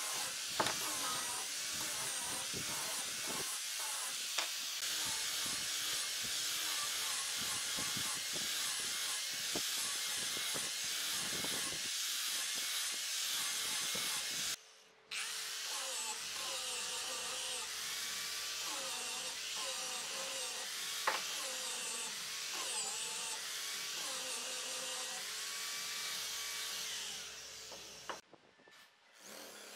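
Angle grinder with a sanding disc running against the edge of a pine wood ring, a steady high hiss of abrasive grinding on wood with a slightly wavering motor pitch. It breaks off briefly about halfway through and fades out near the end.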